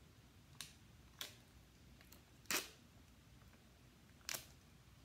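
A small plastic jelly cup and its peel-off lid crackling and clicking as they are handled, four short faint crackles with the loudest about two and a half seconds in.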